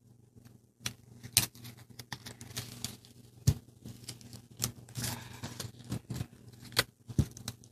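Origami paper being folded and pinched by hand: irregular crisp clicks and rustles, with a few sharper snaps, over a faint steady low hum.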